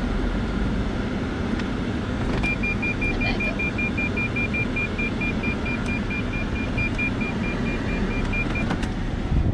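Lexus ES350 parking-sensor warning beeping rapidly on one high pitch, about four beeps a second, starting a couple of seconds in and stopping shortly before the end. It is the intermittent warning for an obstacle picked up in the sensors' middle range, not yet the continuous red-zone tone. Under it the running car gives a steady low rumble.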